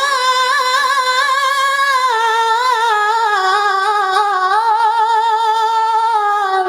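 Melodic Qur'an recitation by a single high, young voice, a capella: one long drawn-out note embellished with quick wavering trills, its pitch stepping slowly down, breaking off with a falling glide at the end.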